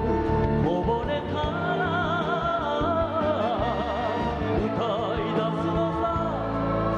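Live band music from an enka song, a lead melody line with heavy vibrato over bass and accompaniment, between sung lines.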